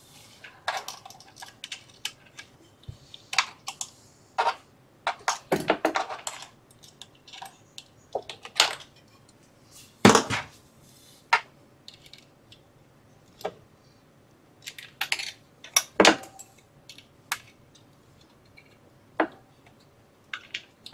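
Irregular small metallic clicks, clinks and short scrapes as a screw is fitted and driven by hand into a NEMA 17 stepper motor's mounting on its rubber damper. The loudest knocks come about ten seconds in and again about sixteen seconds in.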